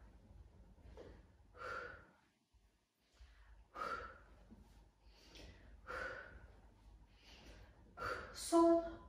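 A woman's heavy breathing into a close microphone while she holds an abdominal exercise: a strong breath about every two seconds with fainter breaths between, and a short voiced sound near the end.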